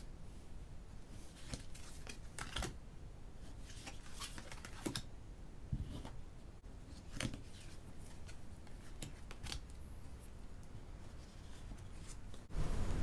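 Tarot cards being picked up and laid down one after another, with irregular soft slides and light taps of card against card.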